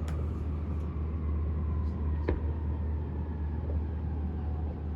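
A single firework bang about two seconds in, over a steady low rumble.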